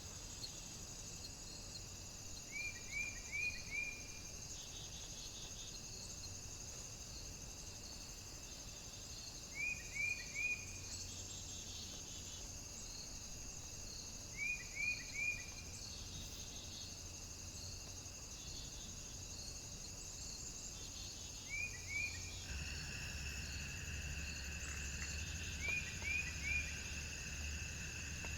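Insect chorus of steady, high-pitched cricket trills. Every five seconds or so a group of three or four short, sharp falling chirps stands out. About 22 seconds in, another steady, lower-pitched trill joins.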